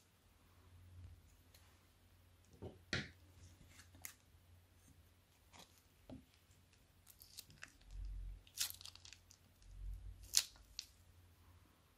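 Plastic zip bag crinkling and crackling in the hand as thick slime mixture is squeezed out of it into a plastic bowl, with scattered sharp crackles and a couple of soft low thumps.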